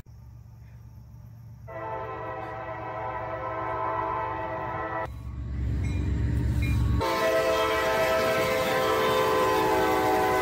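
CSX diesel locomotive sounding its multi-note air horn in two long blasts, the first about two seconds in and the second starting about seven seconds in and still held at the end, as it approaches a grade crossing. The engine rumbles underneath and is most noticeable in the gap between the blasts.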